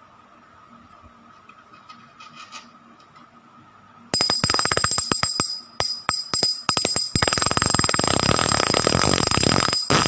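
Spinning reel's clicker sounding in a fast, dense run of clicks with a high ring. It begins about four seconds in, comes in several short bursts, then runs on for about three seconds and cuts off suddenly near the end.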